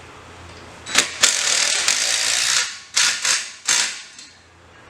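Impact driver tightening the fan's mounting bolts: one long rattling run of about a second and a half, then three short bursts as the nuts snug up.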